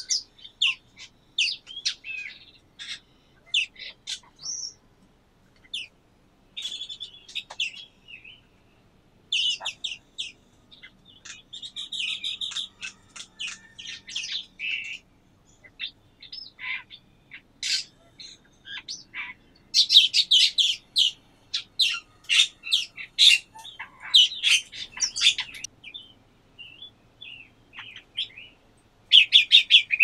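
Small songbirds, silver-eared mesias and red-billed leiothrix, chirping and twittering in quick runs of high, short notes with brief pauses. The calling gets busiest about two-thirds of the way through and again at the end.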